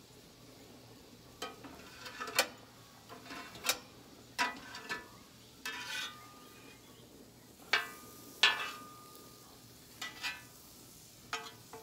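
Metal spatula scraping and clinking on a flat-top griddle as shrimp are turned: about a dozen sharp scrapes and taps, some with a brief metallic ring, over a faint sizzle of the shrimp cooking.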